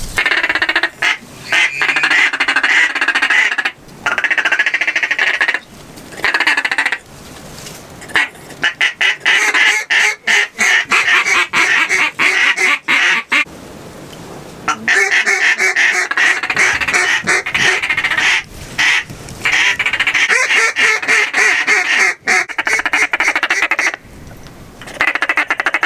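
Duck quacking in long, rapid runs of quacks, several bursts with short breaks between them.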